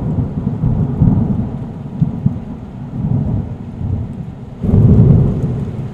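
Thunder rumbling over steady rain, with a second loud rumble about four and a half seconds in.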